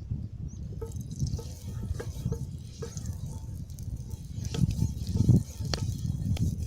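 Oil poured onto a hot dosa griddle stone, dripping and spitting in scattered small ticks over a low rumble.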